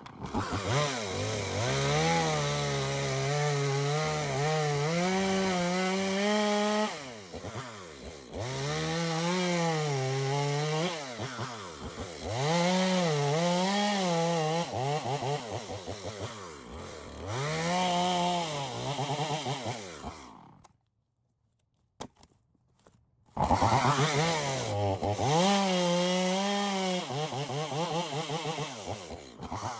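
Two-stroke gas chainsaw bucking logs: the engine revs up, drops in pitch as the chain bites into the wood, and revs again, over and over. It goes silent for about two seconds roughly two-thirds of the way through, then resumes cutting.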